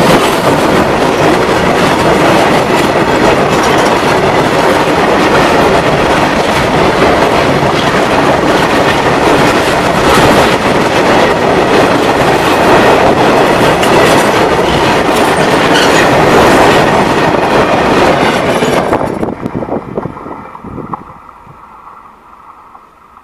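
Freight wagons rolling directly over the track at very close range, steel wheels on the rails making a loud, continuous rumble with repeated clicks. About nineteen seconds in the last wagon passes and the noise drops away quickly, fading as the train moves off.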